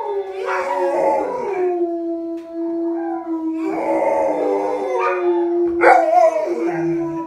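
Golden retrievers howling: long drawn-out howls overlap one another, with rougher, louder howls breaking in about one, four and six seconds in.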